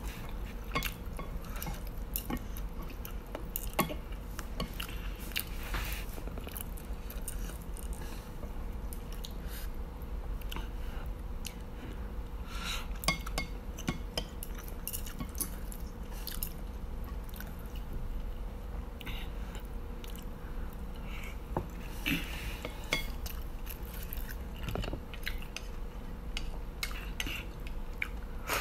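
Chewing noodles, with chopsticks clicking and scraping against a ceramic plate in scattered short taps, over a faint steady hum.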